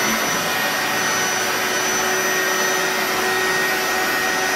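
Simmons Beautyrest air mattress's electric pump running steadily, inflating the mattress: an even rush of air with a constant whine, unchanged throughout.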